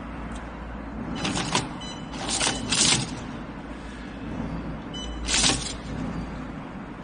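Automatic desiccant-sachet packing machine being jogged in manual step mode: a steady low machine hum, with short hissing, rustling bursts of motion every second or few as the film is advanced and the sealing jaws work, and a brief high whine before two of them.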